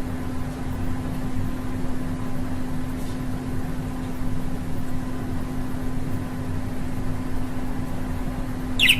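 Steady mechanical hum, like a fan or appliance running, with a constant low tone under an even hiss. A single short high chirp sounds near the end.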